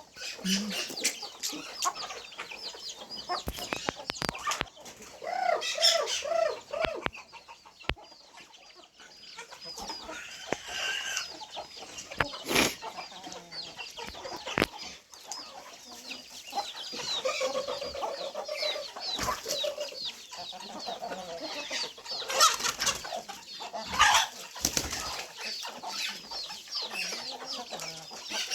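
A flock of chickens clucking and chirping, with many short high calls and lower clucks throughout and now and then a sharp flap of wings.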